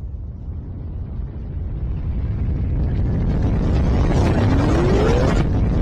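Explosion sound effect: a deep, fiery rumble that swells steadily louder and hissier, with a rising whistle near the end. It cuts off abruptly and comes straight back at full strength.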